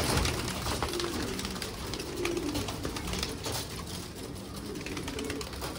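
A flock of domestic pigeons cooing, several soft low coos repeating, with scattered small clicks and the flutter of wings among the birds.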